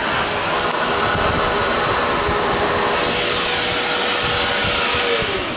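Milwaukee M18 Fuel 0885-20 cordless backpack vacuum running steadily with a high whine. It is switched off near the end, and the motor's whine falls in pitch as it spins down.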